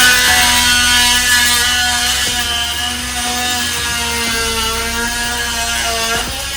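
Oscillating multi-tool running and cutting wood: a steady high whine whose pitch sags slightly about four seconds in as the blade bites, then recovers before the tool stops near the end.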